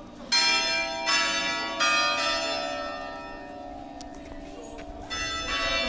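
Church bells ringing from the towers: three strikes on bells of different pitch in quick succession, each left to ring on and fade, then two more strikes near the end.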